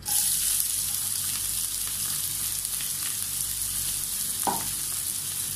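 Chopped onion sizzling in hot oil in a pan, the sizzle starting suddenly as the onion is tipped in and then holding steady, with one brief knock a little over four seconds in.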